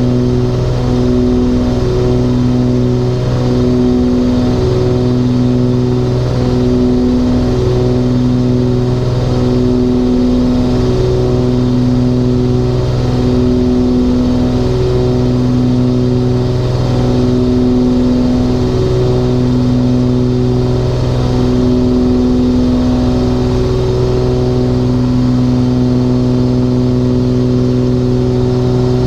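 The twin Continental 520 piston engines of a Cessna 414 Chancellor running steadily at power. The drone swells and fades in a slow beat about every second and a half, the throb heard when the two propellers turn at slightly different speeds.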